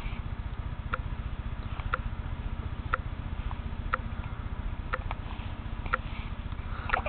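Repeated hiccups, a short sharp hic about once a second, over a steady low background hum.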